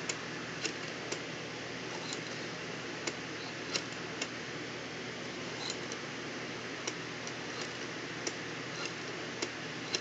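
Rotary telephone dial being turned and let go, digit by digit: scattered sharp mechanical clicks at irregular spacing over a steady hiss.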